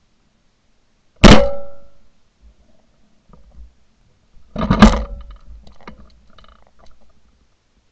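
Two shotgun shots at doves, recorded from a gun-mounted Shotkam: one sharp, very loud blast about a second in and another about three and a half seconds later, each dying away over about half a second.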